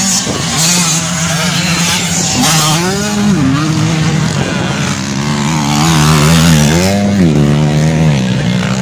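Dirt-bike engines running and revving. The engine note rises and falls about three seconds in and again around seven seconds.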